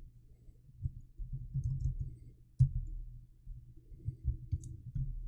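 Typing on a computer keyboard: a scattering of soft key taps and clicks, with one sharper click a little past halfway.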